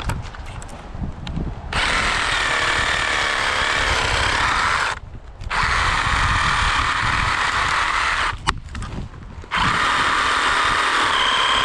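Cordless reciprocating saw with a pruning blade cutting through a tree limb. It runs in three stretches with short pauses between them, over a low wind rumble on the microphone.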